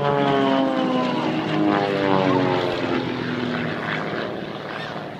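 Propeller aerobatic plane flying past, its engine note falling steadily in pitch and fading as it moves away.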